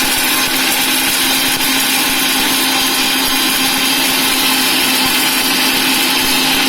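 Electric mixer grinder (mixie) running at full speed, dry-grinding roasted whole spices (cardamom, cloves, peppercorns, dry ginger, cinnamon, nutmeg, mace) into masala tea powder: a loud, steady grinding noise over an even motor hum.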